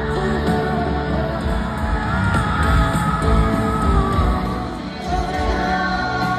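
A live rock band playing through a stadium sound system, with a voice singing long held, gliding notes over a heavy bass and crowd yells mixed in.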